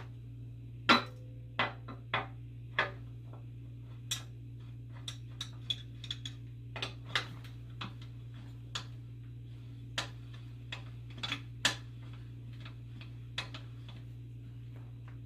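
Irregular light clicks and knocks of metal bicycle parts and tools being handled during assembly, the loudest about a second in, over a steady low hum.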